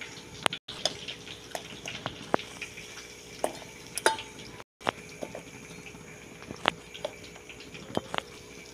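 Metal spoon tapping and scraping against a steel bowl as fried chicken pieces are moved: a dozen or so scattered light clinks over a low steady hiss. The sound drops out completely for a moment twice.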